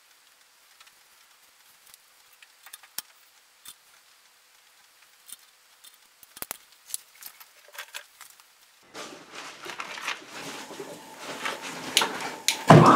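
Light, scattered clicks and taps of soft copper tubing being uncoiled and bent by hand. About nine seconds in, a steady hiss comes in under further knocks.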